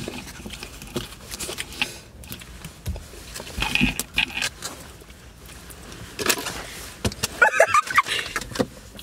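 Irregular rustles and clicks of things being handled and shifted about inside a car, with a short squeaky burst about seven and a half seconds in.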